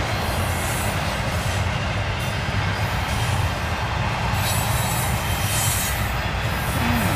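Double-stack intermodal container train rolling past: a steady rumble and rattle of the well cars' wheels on the rails.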